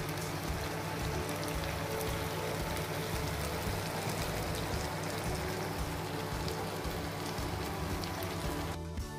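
Chicken pieces in an oily gravy sizzling and bubbling in a frying pan, with soft background music underneath; the sizzling cuts off shortly before the end, leaving only the music.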